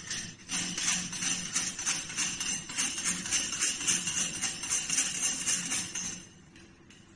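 Brass lock nut spun by hand up the threaded tail of a basin drain, a rapid metallic jingling rattle that stops about six seconds in.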